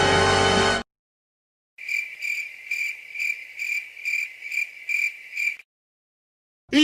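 Crickets chirping in a steady rhythm of high pulses, about two to three a second, for a few seconds: the stock "crickets" comedy sound effect for an awkward silence. A stretch of music cuts off just before it.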